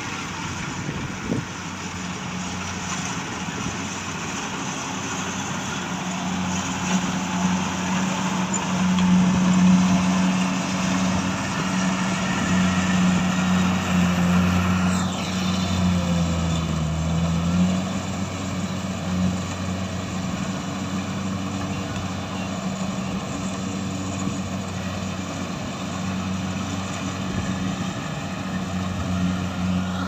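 Kubota combine harvester's diesel engine running steadily under load while it cuts and threshes rice, with the clatter of the cutting and threshing gear mixed in. It is loudest about a third of the way in, and the engine note dips briefly just past halfway.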